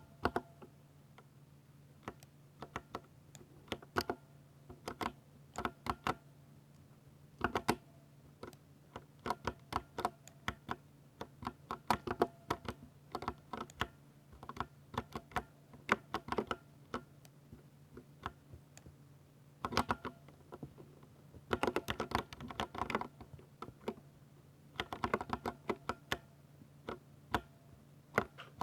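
Typing on a 60% mechanical keyboard with Ducky silver switches: irregular runs of sharp key clicks, with short pauses and two dense fast bursts in the latter half. A faint steady low hum sits underneath.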